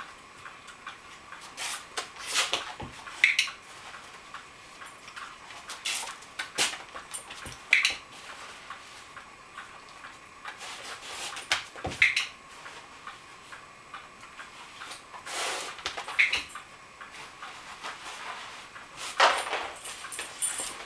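Dog-training clicker clicking sharply about every four seconds, with softer knocks and scuffs in between and a faint steady hum underneath.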